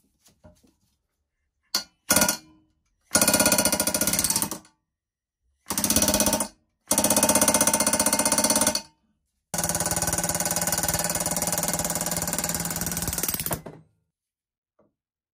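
Pneumatic air hammer driving a seized steel post down and out of a potato chipper's base, in four bursts of rapid hammering, the last and longest about four seconds, after two brief taps. The post would only move one way, and the hammering frees it.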